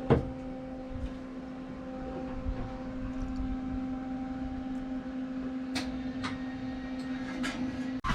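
A steady low electrical-sounding hum with a few light clicks and taps, one knock just after the start and a few near the end.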